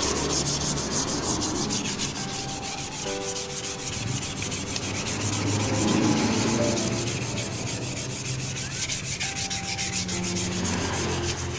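360-grit wet sandpaper rubbed in quick, repeated back-and-forth strokes over a bare aluminium motorcycle fork leg wetted with soapy water, keying the surface for repainting.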